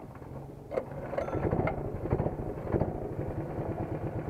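Go-kart engine running at idle, a rapid low pulsing that gets louder about a second in, with a few sharp clicks early on.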